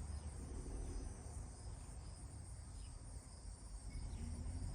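Cicadas droning steadily and faintly in summer heat, over a steady low rumble.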